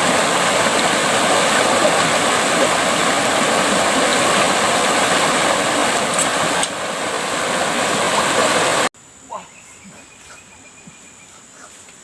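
A loud, steady rushing noise that cuts off suddenly about nine seconds in, leaving faint outdoor ambience with a thin, steady insect buzz.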